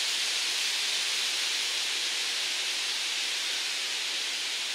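Steady, even hiss of forest background, the rustle of trees in the wind, with no distinct events.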